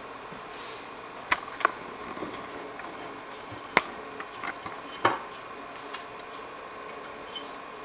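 Utensils clinking and knocking against a baking dish and plate as a piece of pork with its toppings is served: a few separate sharp clinks with smaller ticks between them.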